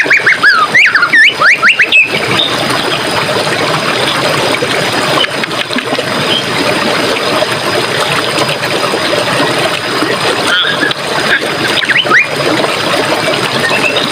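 Running water in a forest stream, trickling and splashing steadily, with a bird's rapid sweeping whistled calls in the first two seconds and a few more short calls about ten to twelve seconds in.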